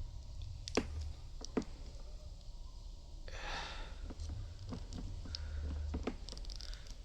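Crimping tool at work on a Cat 6 cable: two sharp clicks of the tool closing, then a short scraping rasp and several lighter clicks as its blade cuts around and strips the outer jacket.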